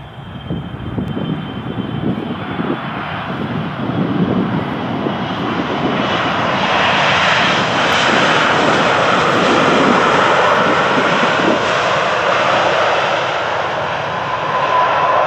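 Boeing 777 freighter's jet engines running loud during the landing roll just after touchdown. The noise swells over the first several seconds and then stays loud. Near the end a steady whine comes through.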